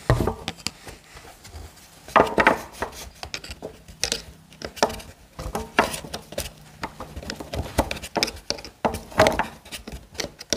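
Hand tool and fingers working at a scooter carburettor's air-filter hose clamp: irregular metallic clicks, scrapes and knocks, with the engine not running.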